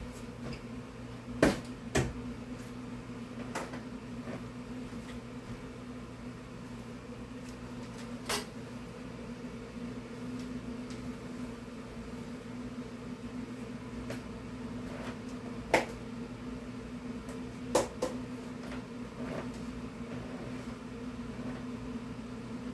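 Dishes and kitchen utensils knocking and clinking as they are handled at a kitchen counter, a handful of short sharp knocks, the loudest a pair about a second and a half in and another pair late on, over a steady low hum.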